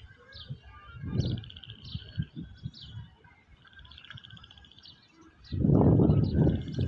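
Small birds chirping and trilling repeatedly over wind gusting across the microphone, with a strong gust near the end.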